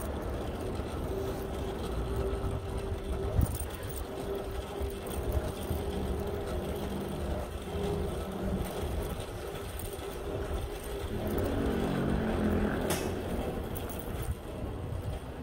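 Road traffic heard from a bicycle riding through city streets, with a steady low rumble. There is a single sharp knock a little over three seconds in, and a passing motor vehicle's engine hum from about eleven to thirteen seconds in.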